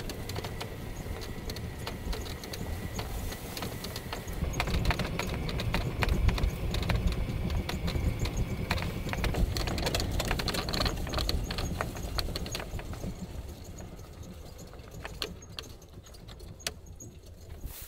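Side-by-side UTV driving over a rough dirt track: a steady engine and road rumble, with frequent clattering rattles from the machine and its load over the bumps. It grows quieter near the end.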